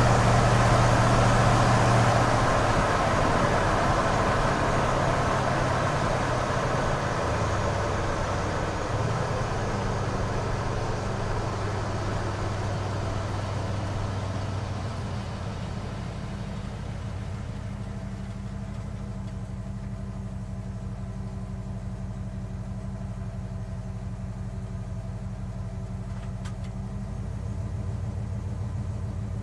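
Cargo van engine running, with steady low engine tones and small shifts in pitch. It grows gradually quieter and duller over the first half, then settles into a steady idle.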